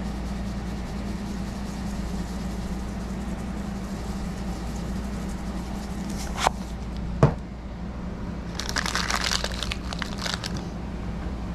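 Steady low hum, with two sharp clicks about six and a half and seven seconds in as a round salt canister's pour spout is handled and snapped shut, then about two seconds of crinkling from a plastic mesh bag of lemons being grabbed.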